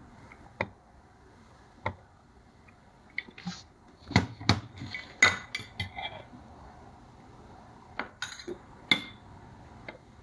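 Cutlery clinking and knocking against the opened jar of canned yellow peaches as the fruit is served out. There are scattered sharp clinks, two single ones early, a busy cluster about four to six seconds in, and a few more near the end.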